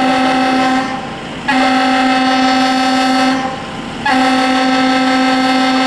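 Fire apparatus air horn sounding long, steady blasts of about two seconds each, with short breaks between them: one stops about a second in, another follows, and a third starts near the end.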